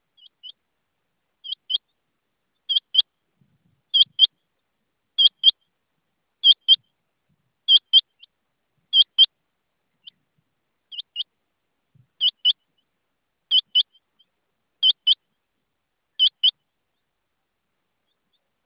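Rain quail calling: a steady series of high, sharp double notes, about one pair every second and a quarter, stopping near the end.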